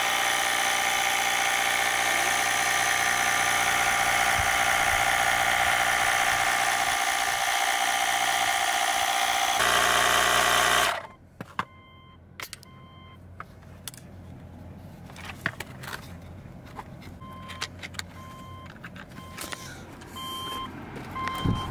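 Slime portable tyre inflator running with a loud, steady buzz as it pumps up a slowly leaking tyre, then switched off about eleven seconds in. After that a car's warning chime beeps repeatedly at an even pace, with a few clicks as the inflator is handled.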